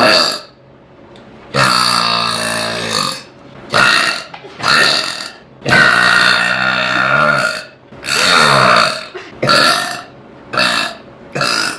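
A girl burping about eight times in a row. Two of the burps are long, about a second and a half each, with a deep pitch that wavers; the rest are short.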